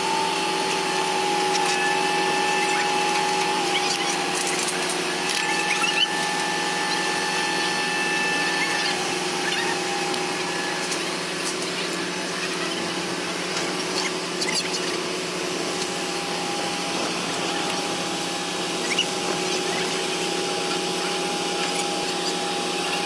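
A machine running steadily with a droning hum and a held whine that shifts slightly in pitch now and then.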